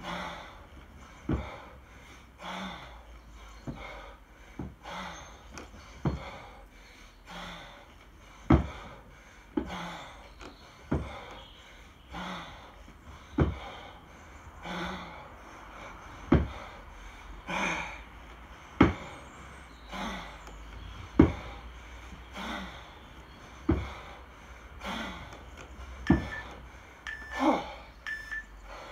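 A 24 kg kettlebell being jerked one-armed without a break: a sharp thud about every two and a half seconds as each rep lands, with heavy, forceful breathing in time with the reps. Three short beeps come near the end.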